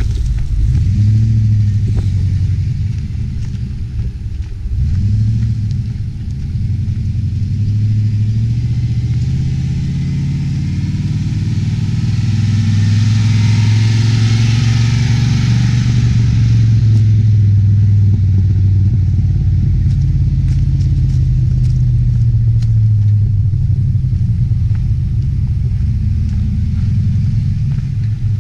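LS1 V8-swapped Nissan Patrol 4WD crawling up a steep gravel track, its engine note rising and falling with the throttle. It is loudest as it passes close, about halfway through, with tyres crunching over gravel, then it fades as it pulls away up the hill.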